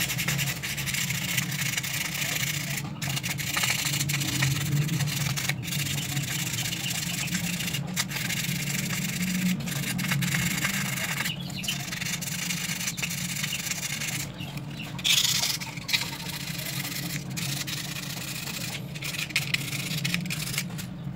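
Sandpaper rubbing rust off the armature windings of a Honda CB150R StreetFire's starter motor: continuous scratchy sanding, broken by a few brief pauses, over a steady low hum.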